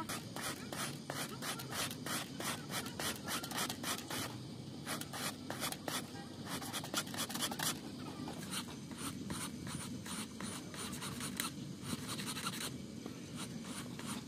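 Flat hand file rasping back and forth over the steel end of a broken bandsaw blade in quick, even strokes, tapering the end so the two ends will overlap flush for brass brazing.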